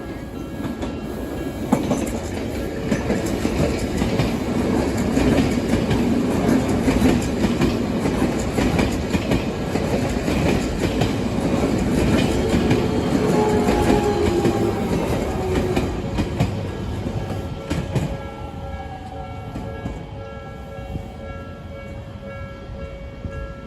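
Odakyu electric train passing over a level crossing, its wheels clacking over the rail joints in a rapid run of clicks over a rumble that builds, holds and fades in the last few seconds. A falling whine is heard as it goes by, and the crossing's warning bell rings steadily underneath.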